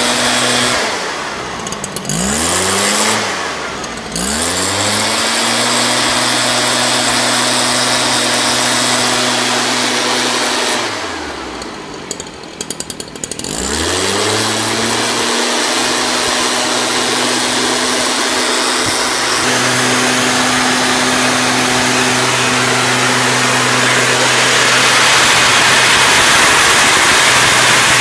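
Two-stroke engine of a STIHL SR 5600 backpack mist blower running at high revs, with a loud rush of air and mist from the fogging nozzle. About a second in and again about eleven seconds in, the throttle is let off: the engine drops toward idle, then revs back up. Near the end the rush of spray grows louder.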